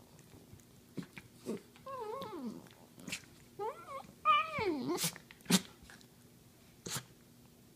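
Dachshunds play-wrestling, giving wavering high-pitched growls that rise and fall about two seconds in and again around four seconds in. Several short, sharp sounds come in between and afterwards.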